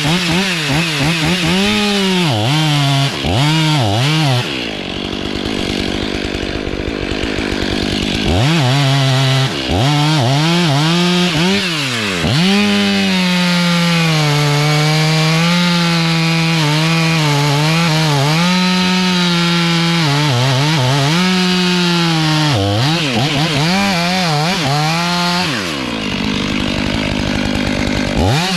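Chainsaw cutting into a dead white oak tree: the engine revs up and down several times, holds steady at full revs in the cut for a long stretch in the middle, and drops off twice to a lower, rougher running.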